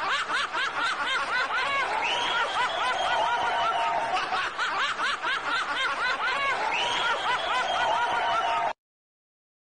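A person laughing hard in a fast, continuous run of laughs, the same stretch of laughter seeming to repeat after about five seconds. The laughter cuts off abruptly near the end.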